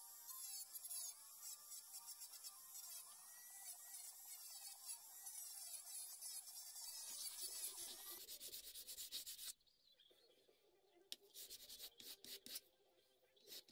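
Small handheld rotary tool with a drum attachment running against a wooden razor scale, a steady high-pitched rub that cuts off about nine and a half seconds in. Near the end come a few short strokes of the wooden scale rubbed by hand on sandpaper.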